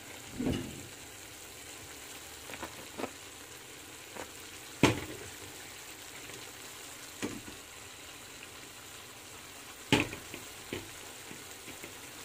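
String beans and pork frying in a stainless steel wok: a steady low sizzle, broken by a few sharp clicks and knocks, the loudest about five and ten seconds in.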